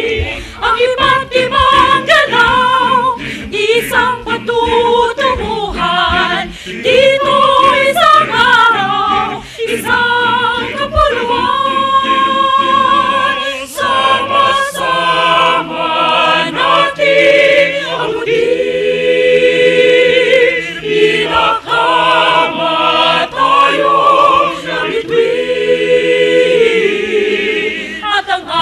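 Mixed choir of men and women singing in harmony under a conductor, the parts moving in the first half and settling into long held chords in the second half.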